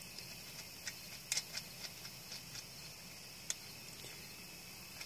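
Faint, scattered small metal clicks and ticks as a chainsaw's bar nuts are unscrewed by hand from the bar studs on the clutch cover.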